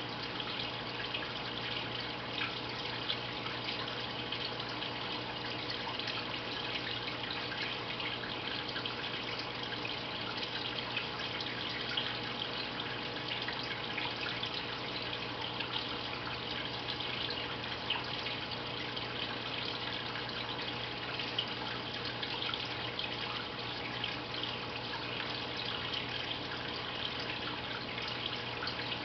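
Water trickling and splashing steadily with many small drips, over a low steady hum: a running aquarium filter.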